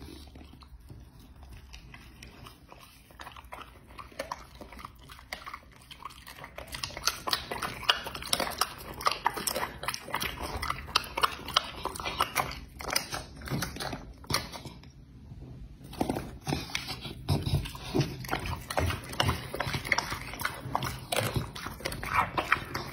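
Dog chewing and biting raw meat: quick, irregular wet smacks and crunches, softer for the first few seconds and then louder and busier, with a short pause about two-thirds of the way through.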